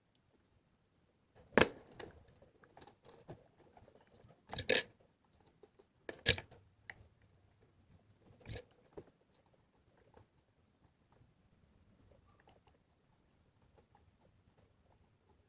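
Sharp clicks and knocks from small parts being handled. Four louder ones stand out among lighter ticks, and it goes mostly quiet from about ten seconds on.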